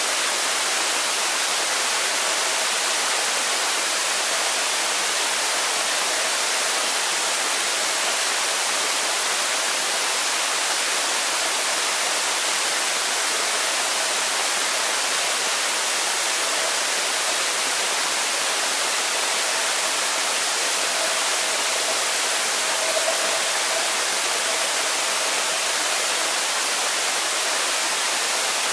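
Steady, even hiss of a pool heard underwater by a camera lying on the pool floor, with a faint steady hum running under it.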